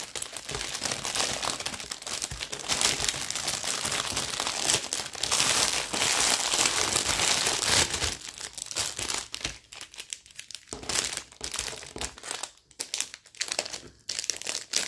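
Clear plastic wrapping crinkling as it is handled and pulled open. The crinkling is dense for about the first eight seconds, then turns into sparser, scattered rustles.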